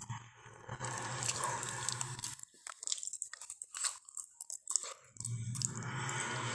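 Crunching, chewing sound effect for a Tyrannosaurus rex eating. Sharp cracks come in a cluster from about two and a half to five seconds in; a steady low hum under the rest drops out there.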